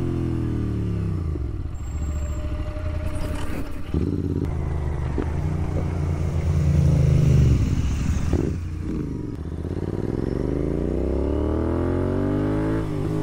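Royal Enfield Continental GT 650's 650 cc parallel-twin engine running through a Red Rooster Performance slip-on exhaust. The engine note falls as it comes off the throttle in the first second or so, swells loudest around the middle, then climbs steadily as it accelerates over the last few seconds.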